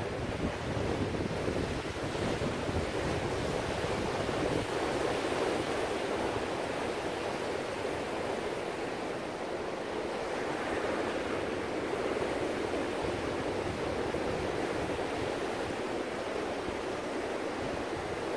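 Ocean surf: waves breaking and foam washing, a steady rushing noise that swells twice and eases between.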